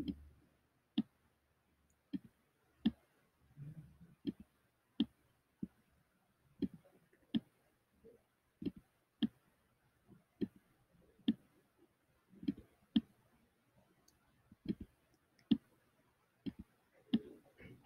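Faint, sharp computer mouse button clicks, irregularly about one or two a second, some in quick pairs, as handwriting strokes are drawn on screen one by one.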